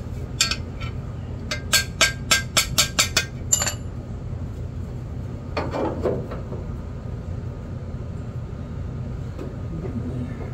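Hammer tapping on thin sheet metal of a truck cab corner patch panel: one strike, then a quick run of about seven light taps, the last one ringing briefly, followed by a duller scuffing sound. Typical of bending a patch-panel edge over during bodywork.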